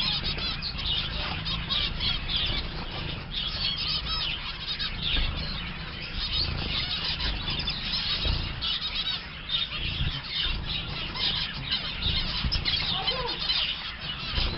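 A flock of zebra finches calling non-stop with many short, high calls overlapping, and the flutter of wings as birds hop and fly about the water dish.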